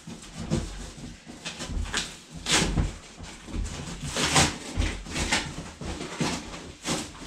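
Cardboard bike box being pulled and wrestled open: a series of irregular scraping and rustling bursts of cardboard, with knocks.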